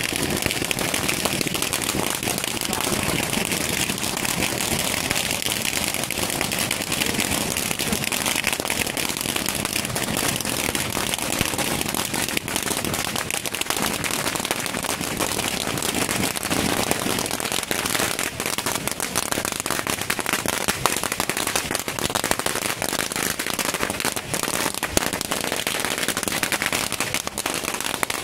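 A large fire of burning paper offerings and a wooden ritual boat, crackling and popping densely and without pause.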